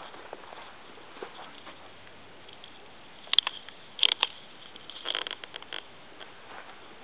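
A few sharp clicks and taps. The loudest come about three and a half and four seconds in, followed by a quick run of smaller ones about a second later.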